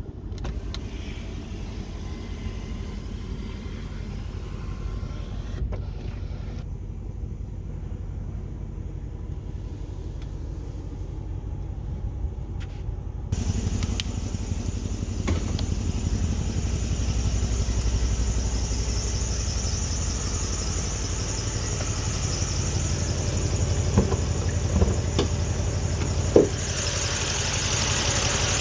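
Mercedes-AMG C63 S twin-turbo V8 idling steadily, muffled at first, then louder and clearer from about halfway through. A few sharp clicks come near the end.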